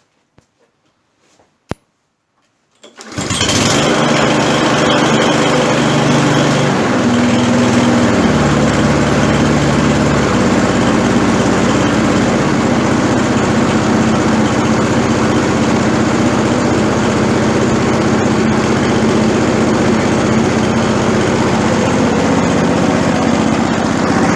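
Torx 140A four-stroke lawn mower engine starting cold on full choke: a few small clicks, then about three seconds in it catches and runs steadily. It starts readily now that the choke linkage has been adjusted to close the butterfly fully, curing its hard starting.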